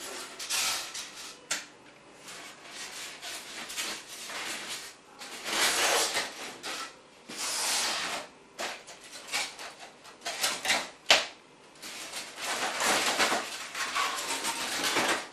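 Hot-wire-cut expanded polystyrene foam pieces being pulled apart and handled: irregular rubbing and scraping of foam against foam, with a couple of sharp knocks.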